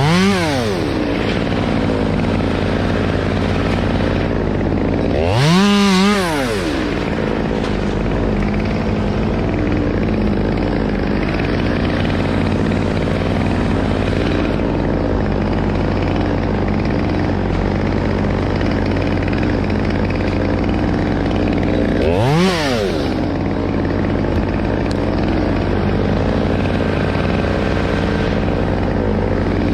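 Two-stroke chainsaw idling steadily, its throttle blipped in short revs that rise and fall in pitch: right at the start, about six seconds in, and again near the twenty-two-second mark.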